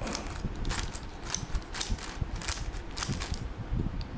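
Thin clear plastic bag crinkling in a series of short rustles as it is handled and cut open with a knife.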